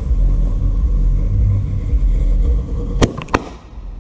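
A ground firework fountain burning over a steady low rumble, then three sharp cracks about three seconds in as it bursts out.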